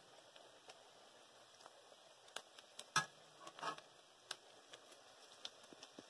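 Wontons deep-frying in hot oil in a wok: a faint sizzle with scattered sharp crackles and pops, a few louder ones around the middle.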